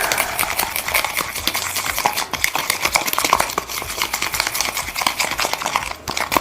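Thick toothpaste-and-sugar slime mixture being stirred hard, a fast run of small scraping clicks, still gritty with undissolved sugar granules. It briefly lets up near the end.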